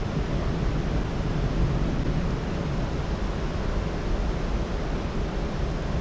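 Steady rush of water pouring out of a sidestream elevated pool aeration (SEPA) station into the river, an even, unbroken noise.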